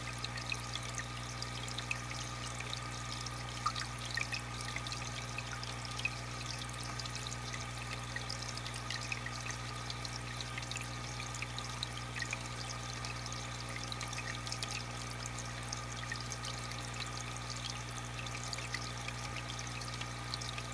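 Aquarium filter water trickling and splashing steadily into the tank, with many small bubbling drips over a steady low hum from the filter pump.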